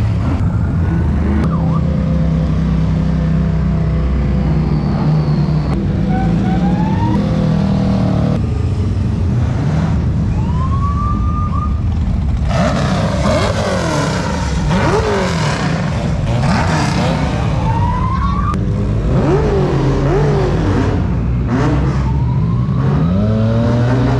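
Off-road race cars and buggies driving past slowly one after another, engines idling low and revved again and again, so that the pitch rises and falls in quick sweeps.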